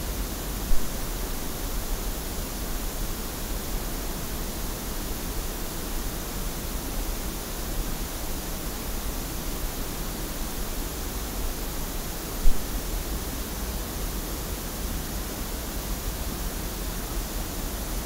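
Steady pink-noise test signal picked up by an Audix TR40 measurement microphone, with two short pops, about a second in and about twelve and a half seconds in, as a Whirlwind ISO2 isolation-transformer splitter is unplugged and plugged back into the phantom-powered mic line.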